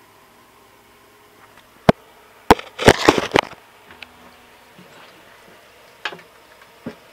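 Handling noise while a camera is set up and an acoustic guitar is picked up. Two sharp knocks come about two seconds in, then a loud burst of knocking and rustling around three seconds, then a few fainter knocks.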